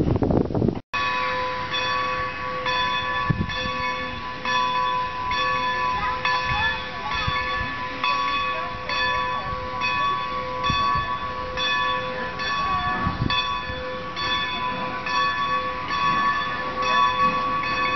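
Wind buffeting the microphone for about the first second, then a steam locomotive's bell ringing steadily, about three strikes every two seconds, its tone carrying on between strikes.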